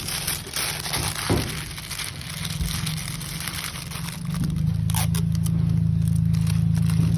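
Clear plastic shrink bag crinkling and rustling as hands fold and press it around a dog chew bone. About four seconds in, a steady low hum starts and carries on under the crinkling.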